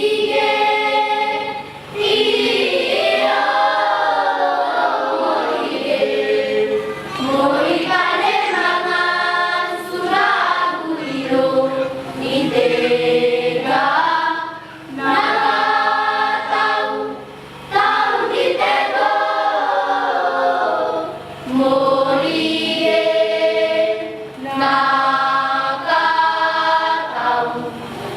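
Children's choir singing a hymn in unison, phrases held and breaking every few seconds, with no instruments.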